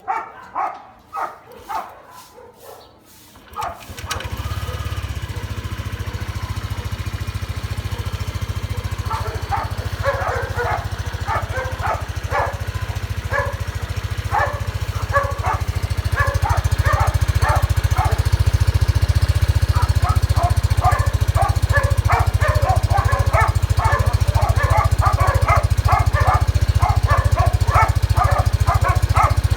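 Motorcycle engine idling through a WF aftermarket exhaust pipe: a steady low hum that comes in about four seconds in and gets louder after about sixteen seconds. Over it, a dog barks over and over from about nine seconds on.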